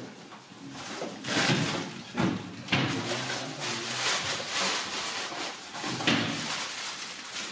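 Irregular rustling and knocking handling noises as things are moved about and searched through in a small room.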